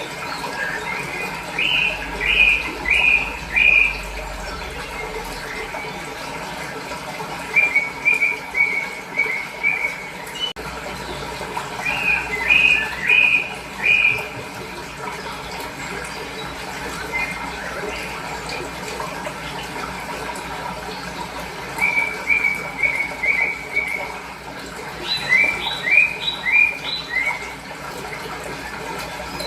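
Small birds chirping in short runs of quick, repeated downward-slurred notes, several bursts spread through, over the steady rush of running fresh water.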